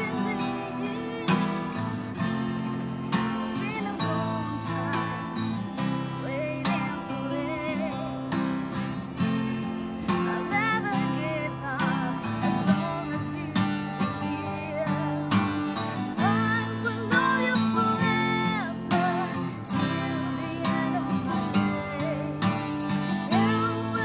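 Twelve-string acoustic guitar strummed in a steady rhythm, with a woman singing a melody over it.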